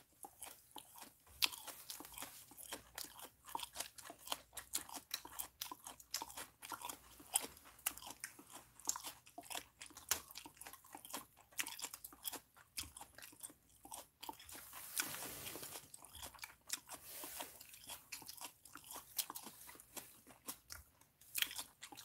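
A person chewing grilled food: irregular soft crunches and mouth clicks, many a second.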